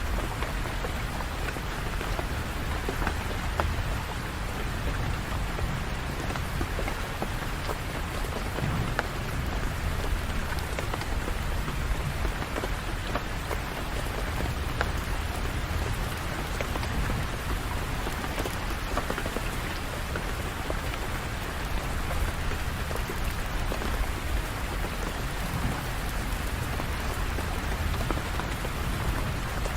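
Steady rain falling on hard surfaces, an even hiss with a constant low rumble beneath it and occasional sharper drop ticks.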